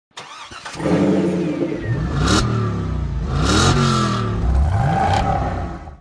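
A car engine accelerating hard. Its pitch climbs and drops back three times, as if shifting up through the gears, with a rush of noise at each peak. It fades out sharply at the end.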